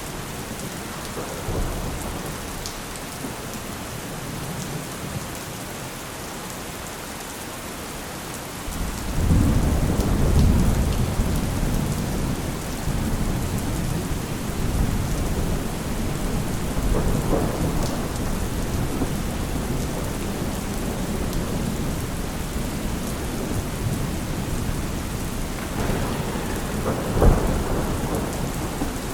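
Steady rain falling, with thunder: a loud low rumble breaks in about a third of the way through and rolls on, and a sharper thunderclap comes near the end.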